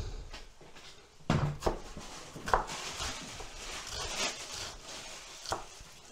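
Knife cutting a white onion on a wooden cutting board: quiet slicing, with a few sharp knocks of the blade on the board.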